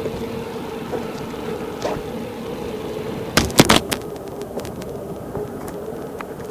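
Kevlar-equipped bicycle rolling at about 25 km/h, giving a steady humming drone over a rushing noise. Midway, a quick cluster of sharp clacks lasting about half a second is the loudest moment.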